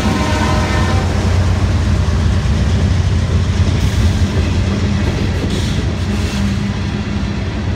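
Freight train passing close: the trailing diesel locomotive's pitched drone fades about a second in, then the steady rumble and clatter of tank cars rolling by on the rails.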